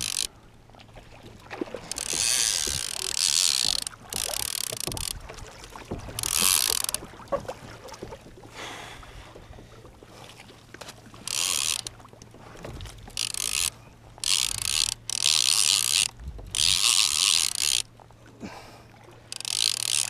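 Penn fishing reel ratcheting in repeated bursts of about a second each, with a mahi-mahi hooked and fighting on the line.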